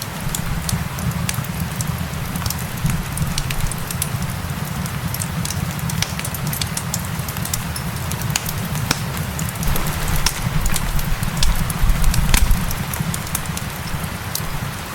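Wood fire crackling with frequent sharp pops, layered over a steady hiss of gentle rain and a low rumble that swells briefly about twelve seconds in.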